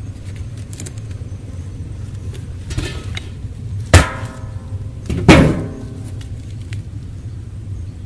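A hive lid striking the rim of a steel 44-gallon drum used as a burning barrel: two loud ringing metallic clangs, about four seconds in and again a second later, over a steady low rumble.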